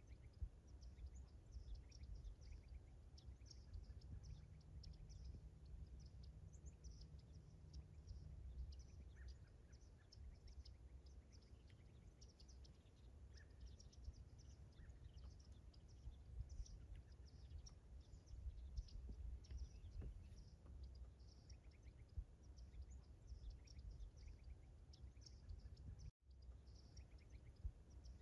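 Faint outdoor ambience: many small birds chirping in short, high calls over a low wind rumble. The sound cuts out for an instant near the end.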